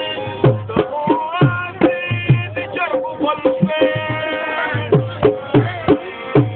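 Music with drum beats under a held, gliding melody.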